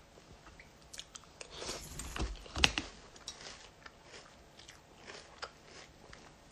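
A person chewing a mouthful of cereal, with scattered small clicks and one sharp click about two and a half seconds in.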